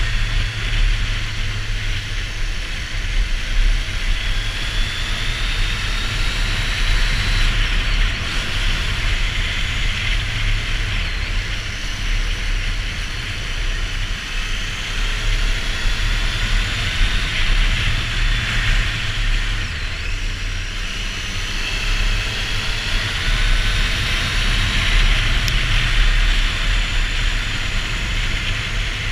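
Triumph Street Triple R's three-cylinder engine running as the motorcycle rides along, under a steady rush of wind on the microphone.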